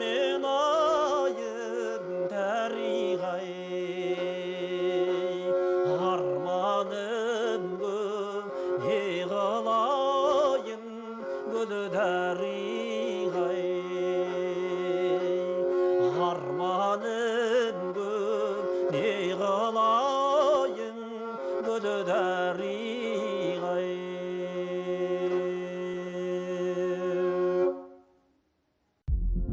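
Kobyz, the two-stringed bowed Kazakh instrument, playing a sliding melody with wavering vibrato over a steady drone. The music stops near the end.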